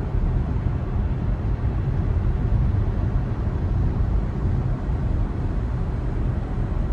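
Steady low rumble of road and tyre noise from a moving Tesla Model 3 Performance, an electric car with no engine note.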